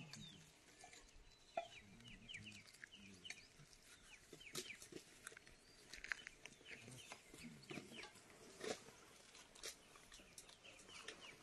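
Faint bird chirping: many short, quick downward chirps in a rapid, irregular stream, with a few sharper clicks.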